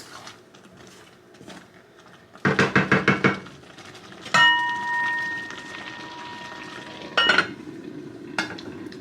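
Metal cookware and utensils clattering on the stove: a quick run of about nine taps, then a clang that rings on as a steady tone for nearly three seconds until another clatter cuts it off, and one more click near the end.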